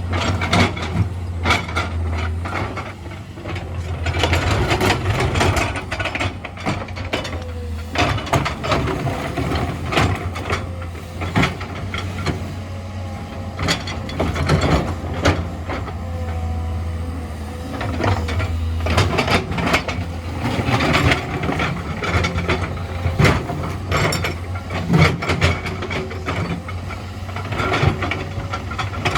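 Hydraulic excavator at work: a steady low diesel engine hum under frequent knocks and clatters, with a few short rising and falling whines.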